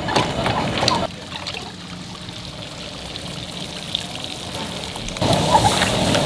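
Seafood and corn sizzling and crackling in a wok over open flame, louder for the first second and again from about five seconds in. Between these, a quieter stretch as thick red Cajun sauce is poured into the wok.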